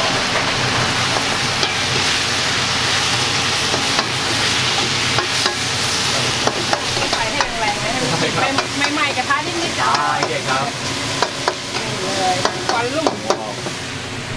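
Wok stir-frying over a high gas flame: curry paste and long beans sizzling in hot oil, with a metal spatula scraping and clacking against the wok many times.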